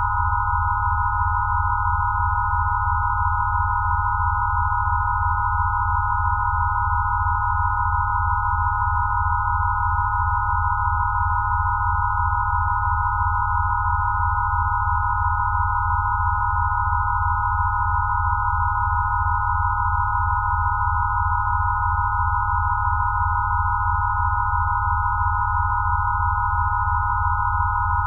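Steady electronic sine tones of a Rife frequency set: several pure pitches clustered around 1 kHz held unchanging, over a low hum that pulses rapidly.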